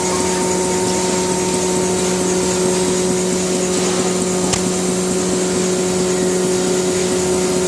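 Processing-plant machinery running steadily: a constant motor or engine drone with a steady hum.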